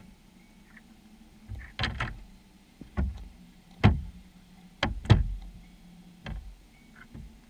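Sharp underwater knocks and taps inside a wire-mesh fish trap as cunners bump against the camera and the wire, about half a dozen irregular hits with the loudest in the middle seconds, over a faint steady hum.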